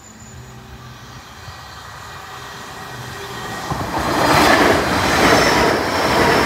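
Hull Trains Class 802 Paragon passenger train approaching and passing over a level crossing at speed: a rush of noise that grows steadily, then turns loud and full from about four seconds in as the train goes by.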